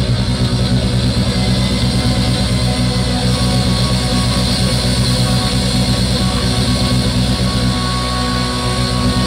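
Southern rock band playing live through a PA: electric guitars, bass and drums, loud with a steady beat.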